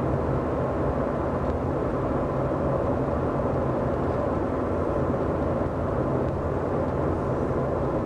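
Steady road noise inside the cabin of a 2007 Mazda 2 at speed, a low drone from the left rear tyre. The tyre's feathered tread makes a noise much like a worn rear wheel bearing, but the bearings are fine and the tyre is at fault.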